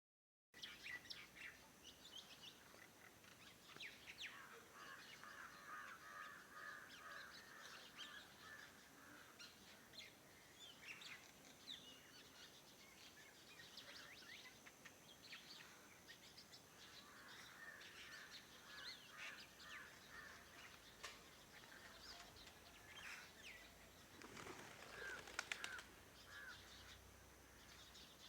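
Several birds chirping and trilling together in a faint morning chorus, with a thin steady high tone running underneath and a louder burst of calls near the end.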